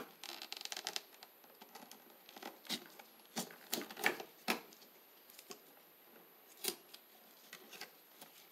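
Hand wire strippers working electrical cable ends as insulation is cut and stripped. A quick run of scraping clicks comes in the first second, then a handful of separate sharp snips and clicks.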